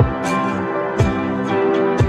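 Background music with a steady beat about once a second, sustained pitched tones and light high percussion.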